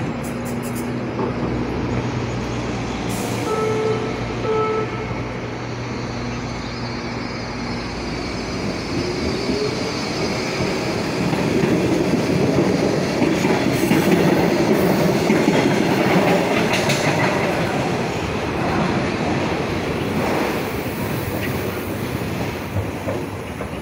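Baltimore Metro SubwayLink train at a station platform: a steady hum, two short beeps about four seconds in, then the train pulls out. A rising motor whine starts about nine seconds in and the rumble of wheels on the rails grows loud through the middle, then fades.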